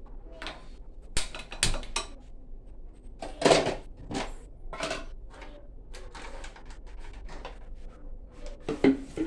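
Irregular clicks, knocks and short rustling clatters of things being handled in a kitchen, the loudest about three and a half seconds in and another pair near the end.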